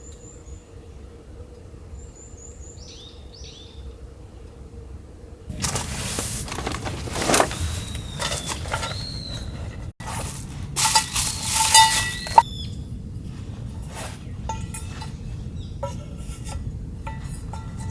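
Small birds chirping in short, high, falling calls, followed by rustling and handling noise with several sharp metallic clinks that ring briefly, loudest a little past halfway.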